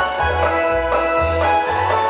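Instrumental music: steady melody tones over a bass line that steps to a new note about twice a second.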